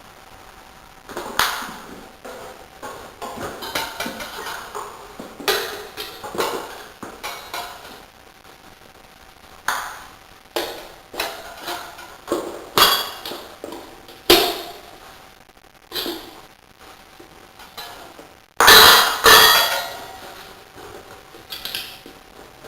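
Metal tools clinking and knocking against a wheel during a hand rear-tyre change: irregular sharp knocks with a short ring after each. The loudest run of knocks comes about nineteen seconds in.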